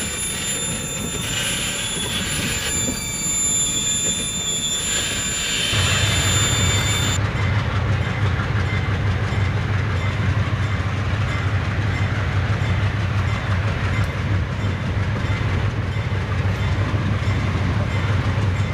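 Freight train boxcars rolling past with steel wheels squealing on the rails. About six seconds in, this gives way to diesel locomotives approaching, their engines running with a steady low hum.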